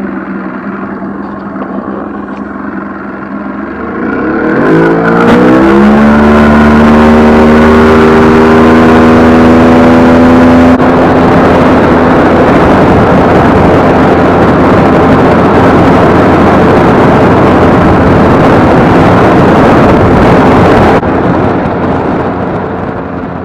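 Boat motor running at idle, then throttled up about four seconds in, its pitch rising as the boat gets under way. It then runs steadily at speed under a loud rushing noise that eases near the end.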